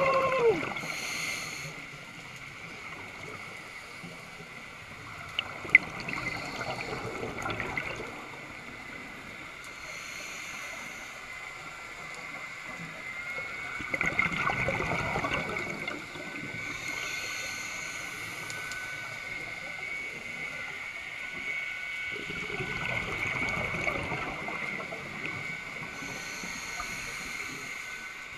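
Scuba diver breathing through a regulator underwater: a short hiss on each inhalation, then a longer rush of exhaled bubbles, about three breaths in turn. A faint steady high tone runs underneath.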